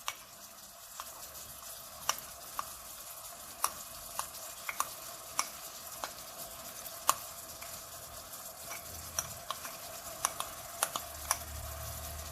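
A spoon stirring hot sugar syrup in a pan: sharp, irregular clicks of the spoon against the pan over a steady sizzle of the syrup.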